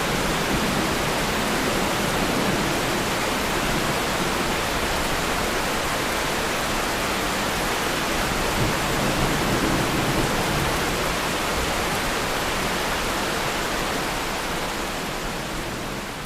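Weather sound effect: a steady, even rushing noise with no separate drops, gusts or tones, fading out over the last couple of seconds.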